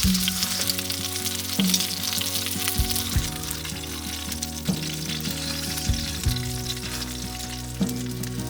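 A steady sizzling crackle with scattered sharp ticks, over background music of held notes.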